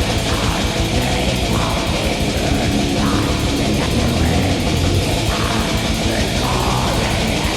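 Black metal music: distorted electric guitars over drums, dense and loud throughout.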